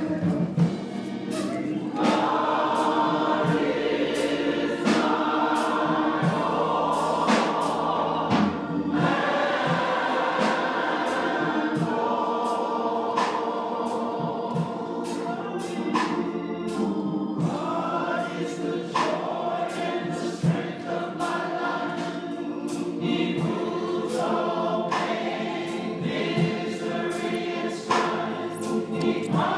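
Church congregation singing together in a gospel style, with a sharp, regular beat of about two strikes a second running under the voices.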